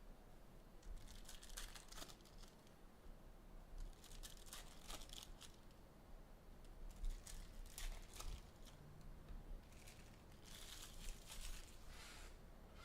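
Faint crinkling and tearing of plastic trading-card pack wrappers as packs of basketball cards are ripped open, in several short bursts of crackle.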